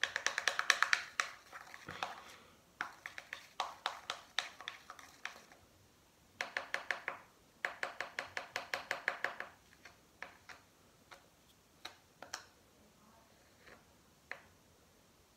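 Slime being stirred fast in a small plastic cup with a plastic utensil: runs of quick clicking taps, about nine a second, in several bursts with short pauses, thinning to scattered clicks in the second half.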